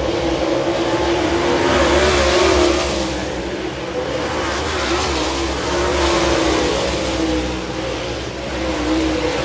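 A field of dirt late model race cars' V8 engines running hard at racing speed, their wavering notes layered together. The sound swells as the pack goes by, about two seconds in and again around six seconds.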